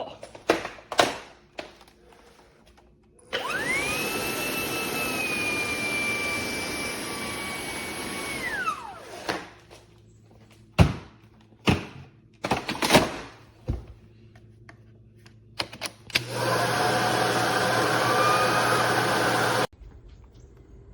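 Vacuum cleaner motor run twice. About three seconds in it starts with a rising whine, runs for about five seconds and winds down. After a handful of clicks and knocks it runs again for about three seconds and cuts off suddenly.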